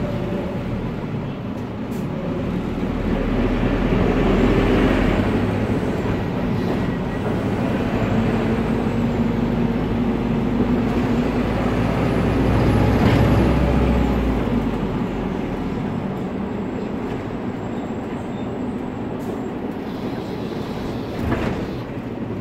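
Isuzu Citibus turbo diesel engine and its cooling fan running under way, heard inside the cabin from the rear seat; the engine noise swells twice, then settles to a steadier, lower drone. A single short sharp knock sounds near the end.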